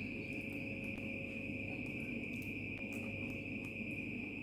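A steady high-pitched insect trill, with a few faint clicks from hands handling an eggplant on a wooden board.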